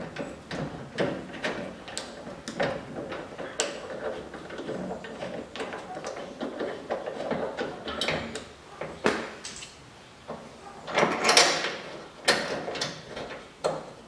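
Hand screwdriver turning the screws of a Land Rover Series III door hinge: a run of irregular metal clicks and short scrapes. There is a louder, longer scrape about eleven seconds in.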